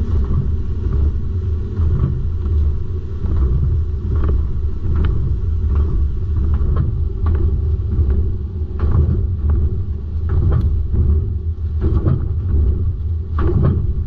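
Pickup truck driving over a bumpy test course, heard from a camera mounted beneath the rear axle: a steady low rumble of road and wind noise, with irregular knocks and rattles from the rear suspension and chassis going over the bumps.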